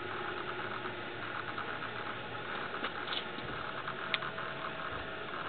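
Steady background hum and hiss, with a single sharp click about four seconds in.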